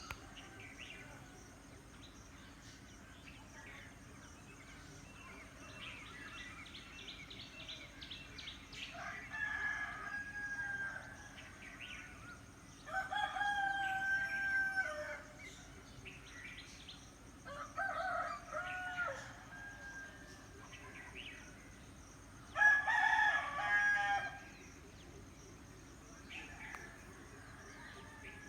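Roosters crowing four times, each crow about two seconds long, a few seconds apart. The loudest comes near the end. Small birds chirp faintly between the crows.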